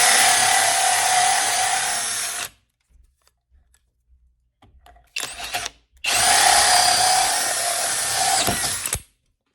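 Flex cordless drill cutting through wood with a 2 1/8-inch hole saw. It runs in two long stretches of about two and a half and three seconds, with a short burst between, and its motor whine holds steady as the saw nears breakthrough.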